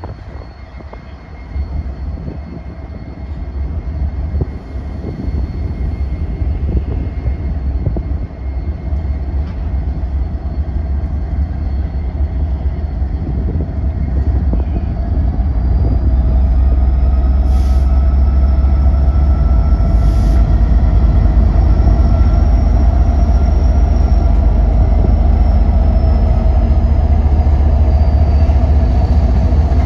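Train rolling past, a heavy low rumble that builds over the first half and then holds steady, with faint metallic whines riding above it and two short hisses around the middle.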